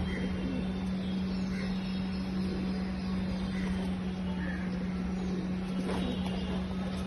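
A steady low hum with one constant tone, over a noisy background, with a few faint short high chirps.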